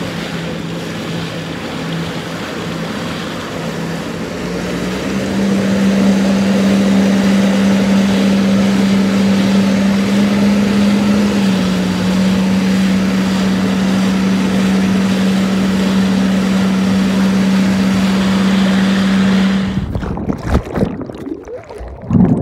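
Jet ski engine running steadily with wind and water rush, picking up speed about five seconds in and easing off slightly about halfway through. Near the end the sound cuts abruptly to muffled, bubbling underwater sloshing as the phone recording it goes under the lake's surface.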